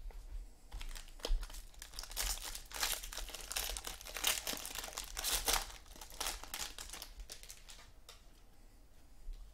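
Foil wrapper of a Topps Jumbo football card pack crinkling and tearing as it is ripped open by hand. The crackling rustle starts about a second in, is thickest in the middle and dies down about eight seconds in.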